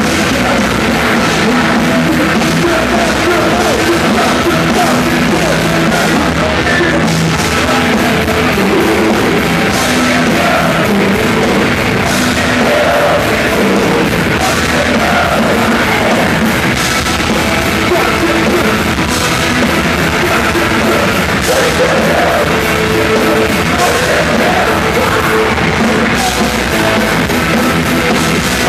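Live rock band playing loud, with drums and singing, and no let-up.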